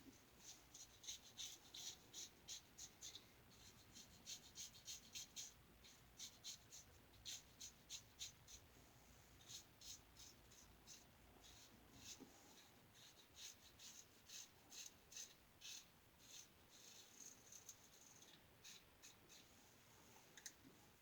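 Faint, crisp scraping of a single-edge safety razor (New Gem Lather Catcher with a Gem blade) cutting through lathered stubble, in runs of quick short strokes, two or three a second, with brief pauses between runs. The blade is getting dull.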